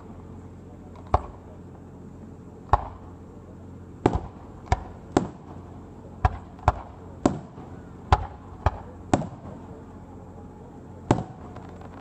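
Aerial firework shells bursting: about a dozen sharp bangs at irregular intervals, several in quick succession in the middle, each trailing off briefly.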